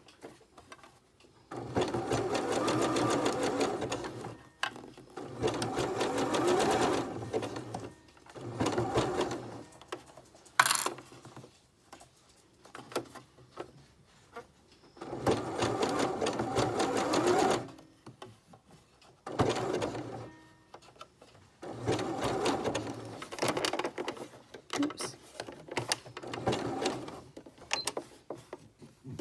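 Janome electric sewing machine stitching a long, wide zigzag to sew elastic onto a fabric strap binding. It runs in about seven short spurts of one to three seconds each, stopping between them while the elastic is stretched. There is one sharp click in a pause about ten seconds in.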